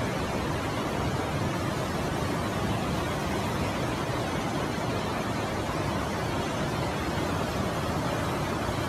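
Swollen, muddy river in flood rushing past at full spate: a steady, even rush of water noise.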